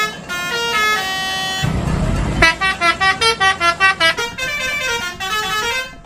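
Multi-tone 'telolet' bus horn of the Basuri type playing a melody of stepped notes, with a short rush of noise about two seconds in, then quick repeated notes about three a second.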